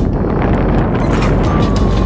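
Wind buffeting the microphone: a loud, steady low rumble.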